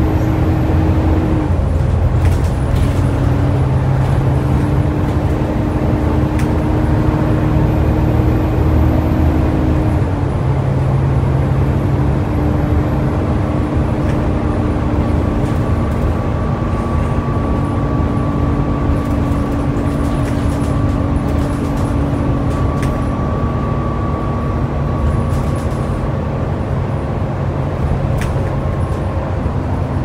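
Volvo B7TL double-decker bus's six-cylinder diesel and ZF automatic gearbox running as the bus drives along, heard from inside the passenger saloon. The engine note steps and shifts in pitch a few times, with a faint higher whine in the second half.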